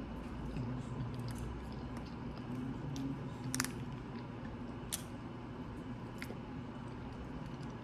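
A person chewing a mouthful of French fries topped with melted cheddar and sauce, with small wet mouth clicks and two sharper clicks at about three and a half and five seconds in.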